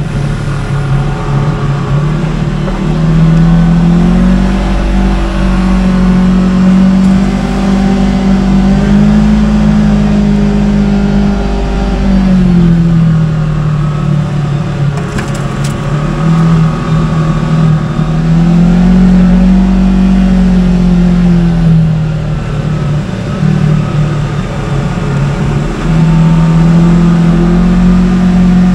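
Segway Villain side-by-side UTV engine running under load off-road, its pitch climbing and dropping several times as the throttle is opened and eased.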